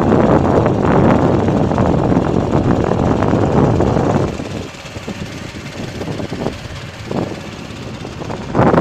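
Wind buffeting the microphone over the road noise of a moving vehicle. It drops to a quieter rumble about four seconds in and surges back up near the end.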